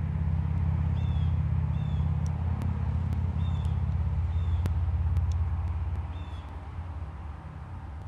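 A steady low rumble, loudest for the first six seconds and then easing off, with a bird giving short high chirps several times and a few sharp clicks.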